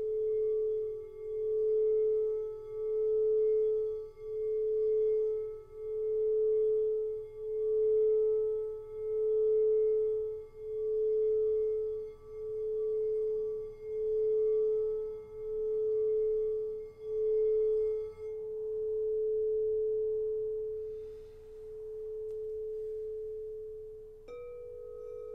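Pressed quartz crystal singing bowl sounding one sustained, pure tone that swells and fades about every second and a half. About 18 seconds in the pulsing stops and the tone rings on smoothly, slowly dying away. Near the end another bowl, a little higher in pitch, comes in suddenly.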